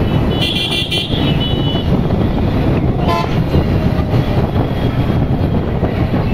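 Steady low rumble of riding along a road in traffic. A vehicle horn toots twice, starting about half a second in, and there is a brief higher beep about three seconds in.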